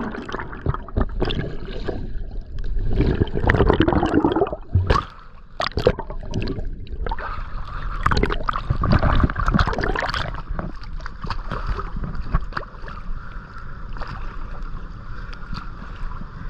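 Running water of a mountain stream and pool, a steady rushing, with irregular knocks and scuffs through it, louder about three to four seconds in and again around eight to ten seconds.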